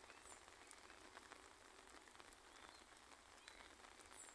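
Faint light rain: a soft steady hiss with scattered tiny drop ticks. Two brief high chirps sound, one near the start and one near the end.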